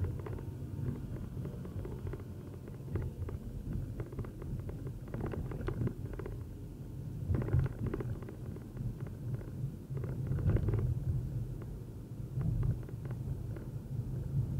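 Uneven low rumble of wind buffeting and road noise on a dashcam's microphone while riding in traffic, with scattered small knocks and a few louder gusts.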